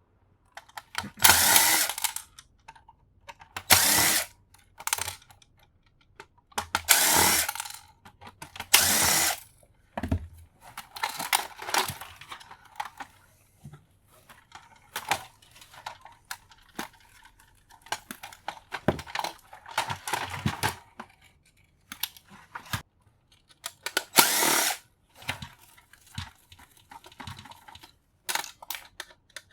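Power drill-driver running in short bursts of about a second, several times over, backing screws out of a boombox as it is stripped for scrap. Clicks and clatter of loose parts between the bursts.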